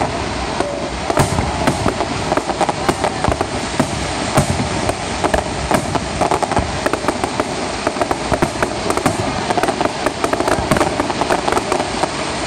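Aerial fireworks going off: many sharp bangs from bursting shells in quick, irregular succession.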